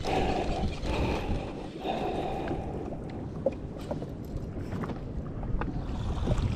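Wind buffeting the microphone and water slapping against a drifting jet ski at sea, with a faint whirr near the start and again about two seconds in, and a few light clicks later on.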